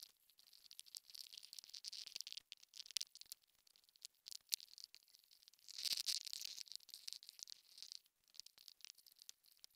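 Faint scratching and clicking of a stylus on a drawing tablet, in irregular strokes, loudest about six seconds in.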